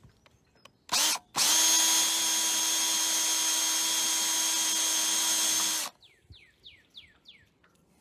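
Power drill drilling out the head of a rivet in a sailboat's aluminium boom end cap: a brief blip of the trigger about a second in, then a steady run of about four and a half seconds at a constant pitch that stops abruptly. A few faint short falling chirps follow.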